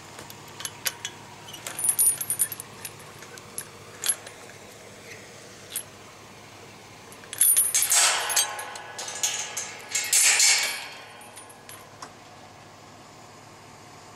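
Metal gate chain clinking and rattling against a gatepost and pipe gate as it is handled and unwrapped. It starts as scattered light clinks, then rattles louder and more continuously for a few seconds past the middle.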